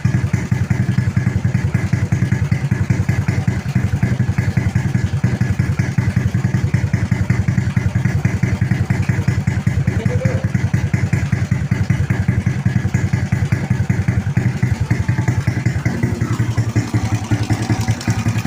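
Honda Wave 100 motorcycle's single-cylinder four-stroke engine, built up with a 56 mm bore and 24/28 big valves, idling steadily with fast, even exhaust pulses.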